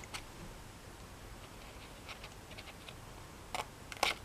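Small precision scissors cutting white cardstock: faint scattered snips and clicks, with two louder cuts near the end.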